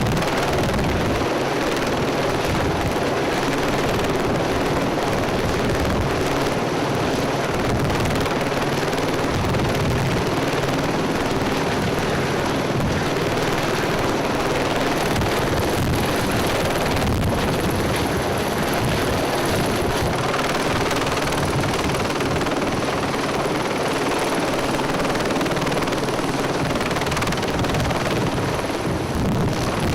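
Helicopter's rotor and engine running loud and steady at close range.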